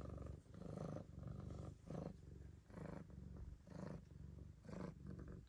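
Domestic cat purring faintly: a low rumble that swells and fades in pulses about once a second.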